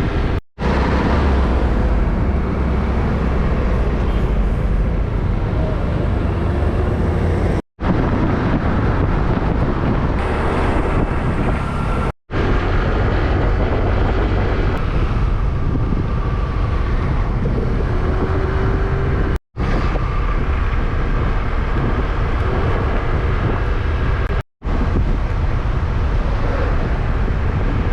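Ride on a motor scooter in traffic: wind rushing hard over the microphone, mixed with road and engine noise. The sound cuts out for an instant five times, at joins between clips.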